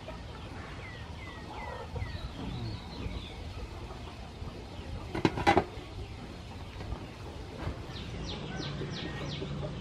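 Aluminium steamer-pot lid clattering, two or three sharp strokes about five seconds in, as it is lifted off the pot. Birds call in the background with short falling chirps, including a quick run of about five near the end.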